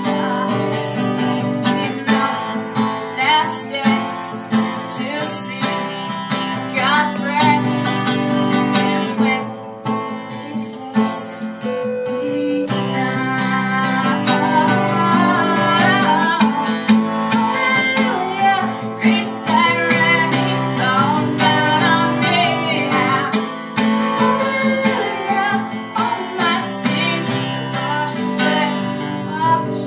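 A woman singing with her own strummed acoustic guitar, a solo live performance, dropping briefly quieter about ten seconds in.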